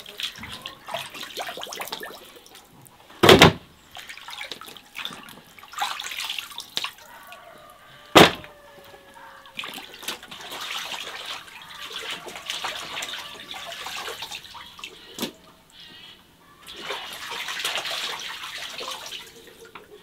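Hands washing raw whole chickens in a basin of water: sloshing and splashing, heaviest in the second half. Two sharp knocks stand out, about three and eight seconds in.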